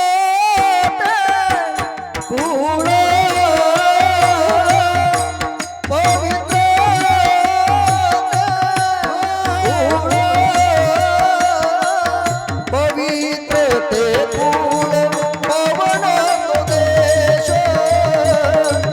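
Devotional kirtan-style singing: a solo voice holds long, wavering melodic notes over a steady rhythm of tabla-like hand drums and percussion.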